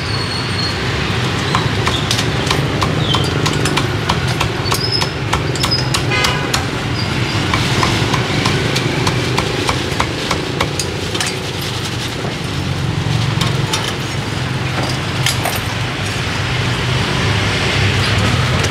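Cleaver chopping roast pork on a chopping block: a run of irregular sharp knocks, over a steady low hum of street traffic.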